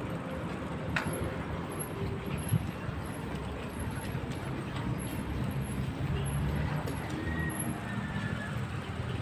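Wind buffeting the microphone and tyre noise from a bicycle rolling along a concrete street, a steady low rumble, with a couple of short sharp clicks in the first few seconds.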